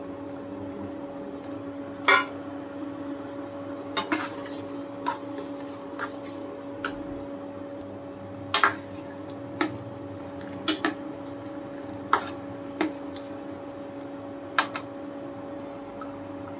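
Metal ladle stirring dal in a stainless steel pot, clinking against the pot about a dozen times at uneven intervals, over a steady hum.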